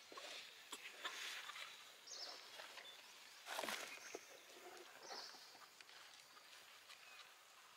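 Faint outdoor ambience with a few short high chirps and a brief rustle about halfway through.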